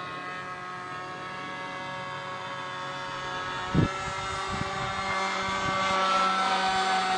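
Radio-controlled model airplane's motor and propeller running overhead: a steady whine that grows louder as the plane comes closer on its landing approach. A brief thump about halfway through.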